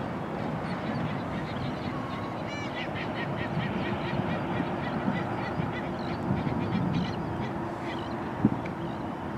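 Wind on the microphone, with a flock of waterbirds giving a quick run of short honking calls from about two and a half seconds to about eight seconds in. A single sharp knock near the end.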